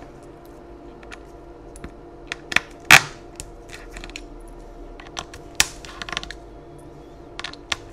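Scattered small, sharp metallic clicks and taps of a precision screwdriver and tiny screws on a laptop display's metal hinge frame as screws are taken out, the loudest about three seconds in, over a faint steady hum.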